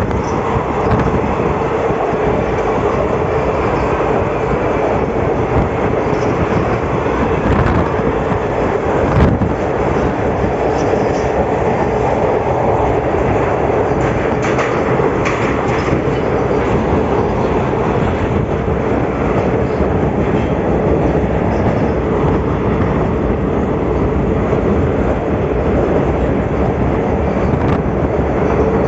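A passenger train running at speed, heard from inside the coach: a steady rumble and rattle of wheels and carriage with a constant drone underneath and one louder knock about nine seconds in. From partway through, the train runs through a tunnel.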